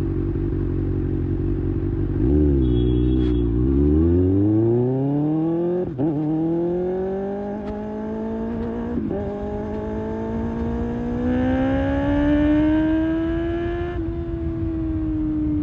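Kawasaki Ninja ZX-6R inline-four through an IXIL slip-on exhaust, idling and then pulling away. It revs up through the gears, with the pitch dropping at upshifts about six and nine seconds in, climbing again and then easing off near the end.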